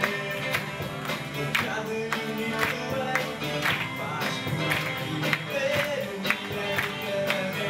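Live rock band playing: electric guitars, bass guitar and a drum kit, with drum hits keeping a steady beat of about two a second.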